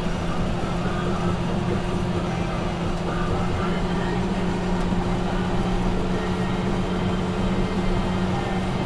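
Caterpillar D8T bulldozer's diesel engine running with a steady, even drone.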